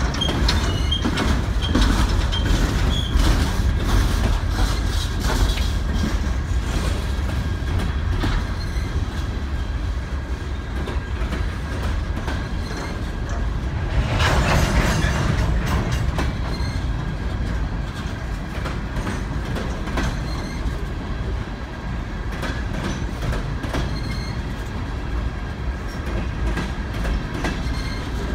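Freight train of open-top coal cars rolling past on steel rails: a steady rumble with wheels clicking over the rail joints and faint high wheel squeals near the start. About halfway through there is a brief, louder burst of noise.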